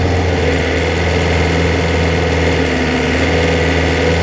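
Excavator's engine running steadily, a low, even hum with no change in speed.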